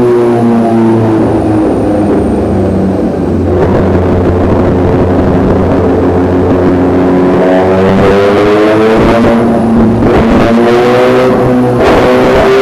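Honda CBR1000RR-R SP's 1000 cc inline-four engine running hard on a dyno: the engine note falls over the first few seconds, then climbs steadily in pitch, broken twice by short interruptions near the end.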